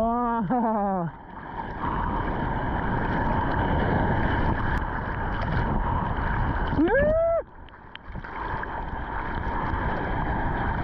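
Water splashing and sloshing around a surfer's arms and board while paddling, close to the camera. Over it come short hoots that rise and fall in pitch: two quick ones at the start and a single higher one about seven seconds in.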